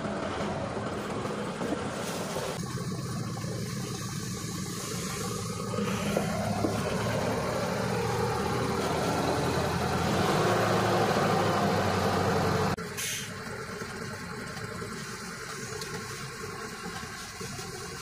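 Turbocharged four-stroke diesel engine of a self-loading concrete mixer running steadily, louder through the middle as it works the hydraulic loader arm, then dropping back suddenly about thirteen seconds in.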